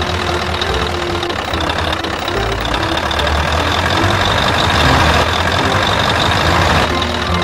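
Truck engine sound effect running steadily at a low, idling-like speed, getting a little louder around the middle.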